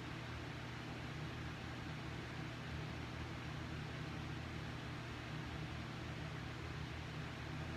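Steady low hum with an even hiss, like a small motor or fan running, with no separate clicks or knocks.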